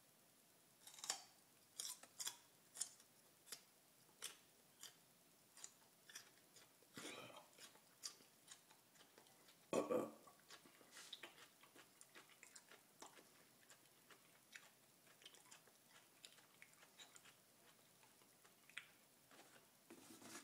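Raw garlic cloves being bitten and chewed, a run of short crisp crunches that come thick and fast in the first half and thin out later. Two longer, louder sounds stand out, about seven and ten seconds in.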